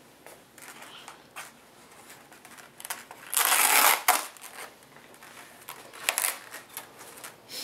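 Duct tape being ripped off a styrofoam takeout container: one loud, rough tearing noise lasting under a second, about three and a half seconds in, amid smaller scrapes and crackles from handling the foam box.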